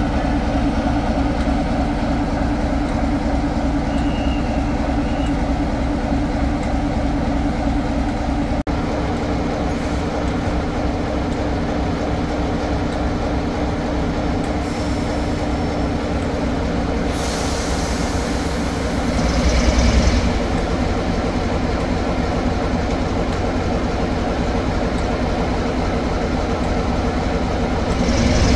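A train at a station platform, running with a steady mechanical hum. Brief hissing rushes come in a little past halfway and again near the end.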